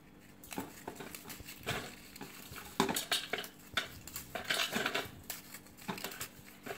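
Marie biscuits being snapped and broken by hand, with pieces and crumbs dropping onto the biscuits in a stainless steel bowl: a run of irregular crisp cracks and light clatters.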